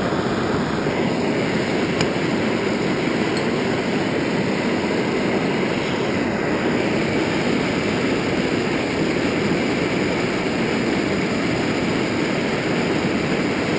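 Metal-melting furnace running with a steady rushing roar that does not change.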